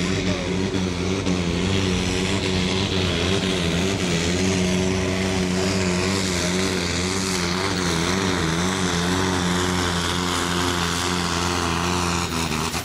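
Case IH pulling tractor's diesel engine running flat out under load as it drags the weight-transfer sled, a steady high-revving note whose pitch wobbles slightly partway through. The sound cuts off abruptly near the end.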